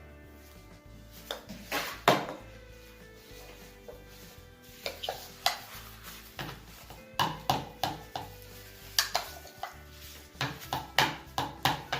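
Shaving foam being added to a slime mixing bowl: a string of short, sharp hissing clatters from the aerosol can and the bowl, few at first and coming thick and fast from about five seconds in, over soft background music.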